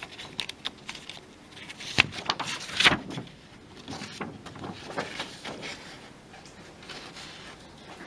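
Rustling and crinkling of a large folded paper sheet being unfolded and handled, with two louder crinkles about two and three seconds in.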